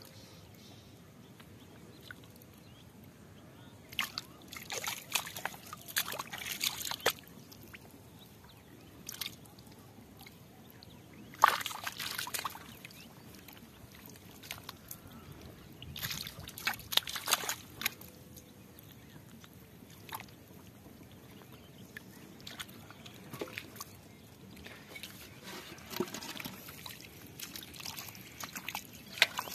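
Hands scooping and grabbing in shallow muddy water in a flooded rice field: irregular bursts of sloshing and splashing a few seconds apart, with light trickling in between.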